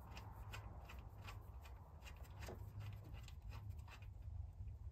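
Faint, irregular clicks and rubbing from fingers working the mini bike engine's oil drain bolt loose, over a low steady hum.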